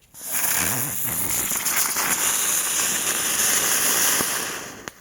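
A small ground firework burning with a loud, steady hiss and faint crackling. It starts abruptly and dies away after about four and a half seconds.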